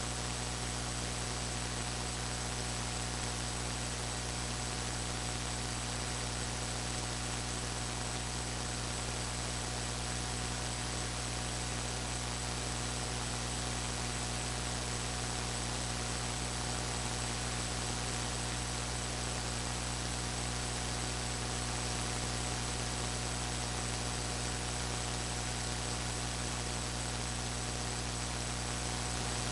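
Steady hiss with a low electrical hum running under it, unchanging throughout: background noise of the recording setup, with no other sound.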